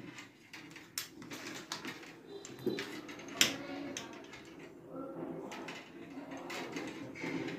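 Light handling noises of a small LED driver circuit board and a soldering iron on a desk: a few sharp clicks and taps, the loudest about three and a half seconds in, over a faint murmur.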